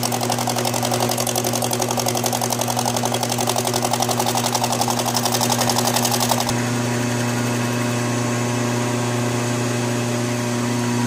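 Bridgeport milling machine's end mill cutting the deck of a chainsaw crankcase, a fast, fine chatter over the steady hum of the spindle. The cutting stops about six and a half seconds in, and the spindle keeps running.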